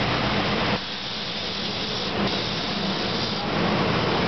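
GE Silverliner IV electric railcars rolling past the platform as the train arrives, with a steady hiss; the low rumble drops away under a second in and builds again near the end.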